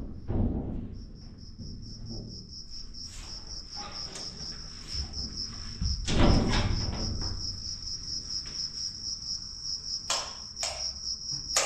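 Crickets chirping in a steady, fast high trill, with occasional knocks and thumps.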